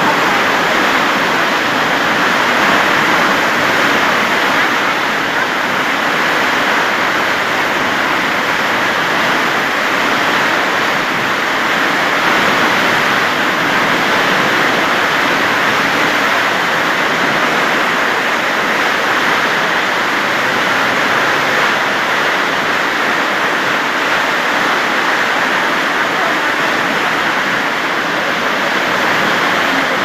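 Water rushing and churning along the hull of a moving boat: a steady, loud hiss of foam and spray.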